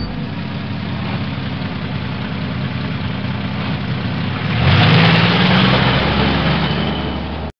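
A motor running steadily; about two-thirds of the way through it gets louder with a short rise in pitch, then cuts off abruptly.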